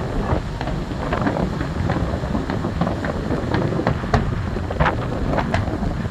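Fireworks finale: a continuous low rumble of shells bursting, with sharp cracks and bangs several times a second, over wind buffeting the microphone.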